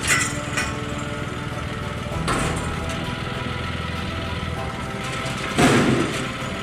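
Tractor engine running steadily while the front-end loader's log grapple handles debris, with a few sharp knocks and a louder crash of material about five and a half seconds in.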